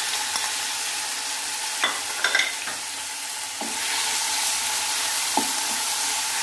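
Chicken pieces sizzling in hot oil in a nonstick kadai while a spoon scrapes them off a plate and a wooden spatula stirs and taps against the pan. The sizzle grows louder a little past halfway through.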